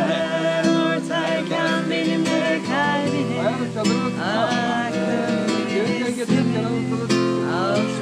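Acoustic guitar strummed as accompaniment while a woman and men sing a song together.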